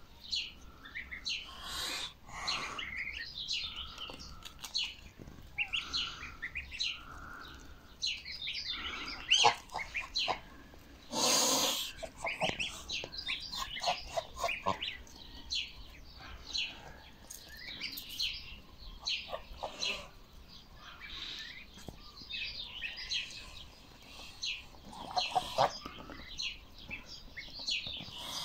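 A brood of domestic goslings peeping constantly, many short high calls overlapping as they feed. A brief loud burst of noise breaks in about eleven and a half seconds in.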